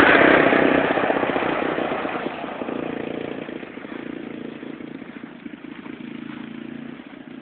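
ATV (four-wheeler) engine running as it drives away, fading steadily over the first few seconds to a faint, distant drone.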